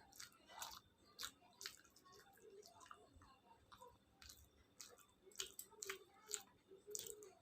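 Close-miked mouth sounds of someone chewing khichuri with fried vegetables: soft, irregular short clicks and smacks, several a second.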